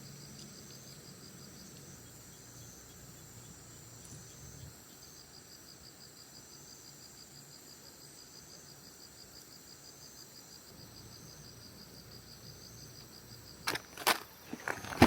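Insects chirping outdoors at night in a steady, fast pulsing high trill over a thin constant high whine. A few sharp clicks come near the end.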